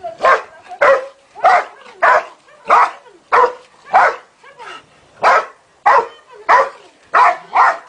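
A dog barking over and over at a steady pace, about a bark every half-second or so, each one short and sharp.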